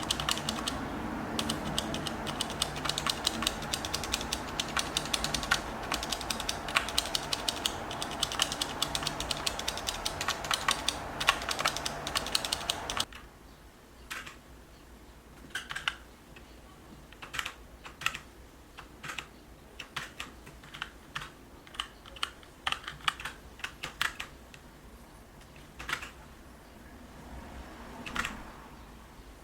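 Typing on a mechanical keyboard with tactile brown switches: rapid, dense keystrokes for about the first half, then slower, scattered key presses.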